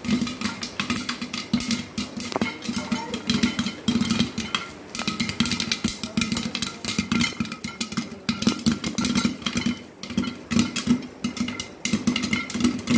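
Popcorn kernels popping rapidly inside a closed aluminium pressure cooker, many sharp pops a second against the metal pot, like a string of firecrackers going off.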